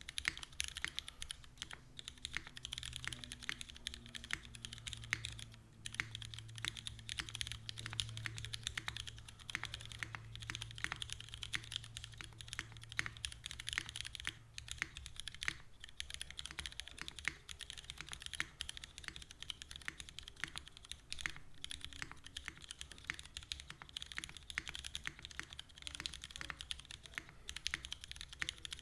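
Continuous typing on the Freedom prototype mechanical keyboard, with Cherry MX Black linear switches and GMK doubleshot keycaps clacking in a fast, irregular stream, broken by a short pause about six seconds in.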